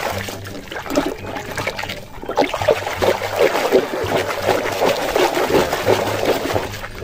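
Muddy water splashing and sloshing in a basin as a hand swishes a toy car back and forth through it to wash it.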